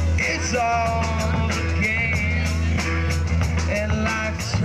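Live rock band playing: drum kit keeping a steady beat under a sustained bass, with a melody line that bends in pitch and wavers with vibrato.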